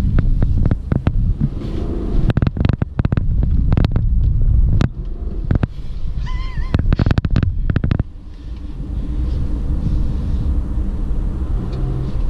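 Low, steady rumble of a car's engine and tyres heard from inside the cabin on a winding road. Many sharp clicks and knocks run through the first two-thirds, and the rumble smooths out and drops a little about eight seconds in.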